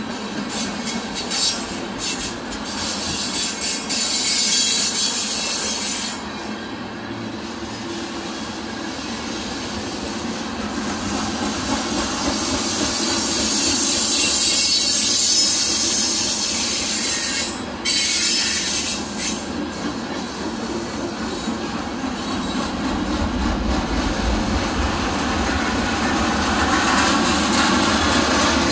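Freight train's container-loaded flatcars rolling past at speed, steel wheels hissing and squealing on the rails with a high hiss that fades and returns. Near the end a low rumble builds as the mid-train CSX distributed-power locomotives come up.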